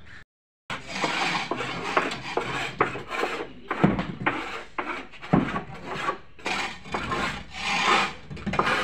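Metal hand tools scraping over wet concrete and mortar in short, irregular strokes, about two a second.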